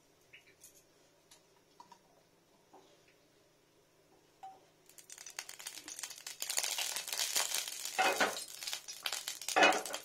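Hot oil in a frying pan starting to sizzle and crackle about halfway through, busy and continuous, with two louder bursts near the end.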